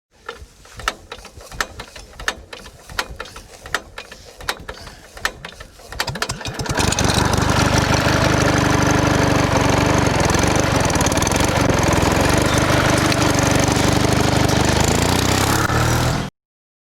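Sharp irregular clicks and knocks, then a small engine starts about seven seconds in and runs steadily before cutting off suddenly near the end.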